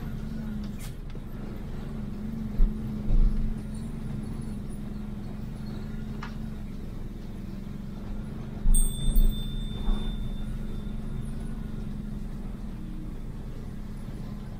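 Vehicle engine running steadily with rumbling road noise, and a few low thumps about two to three seconds in and again around nine seconds. A short high steady tone sounds for about a second and a half around nine seconds in.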